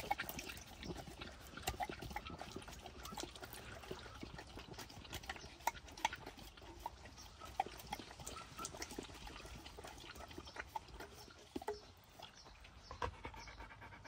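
Pit bull lapping water: a long run of quick, irregular clicks.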